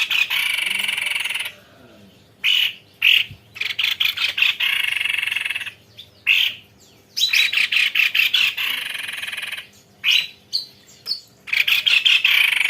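White-necked babbler (tepus leher putih) singing long rolling trills: four dense phrases of about two seconds each, separated by short sharp chip notes.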